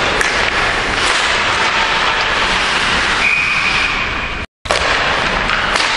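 Referee's whistle blown in one steady high note about three seconds in, stopping play at the net, over the constant noise of the ice rink. The sound drops out for a moment just after the whistle ends.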